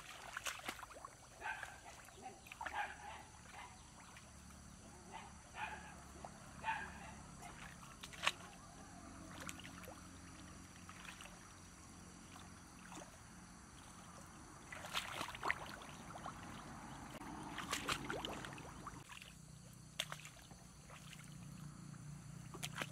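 A dog yips several times, about a second apart, in the first few seconds. Then comes splashing and sloshing of shallow muddy water as hands grope through it for fish, busiest in a run of splashes in the second half.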